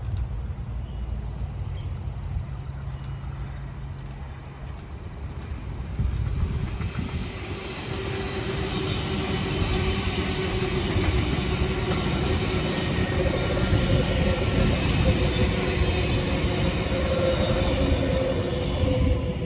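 V set double-deck electric passenger train approaching and passing close by. The rumble of wheels on the rails grows louder about six seconds in, with a steady whine over it, and stays loud as the carriages go by.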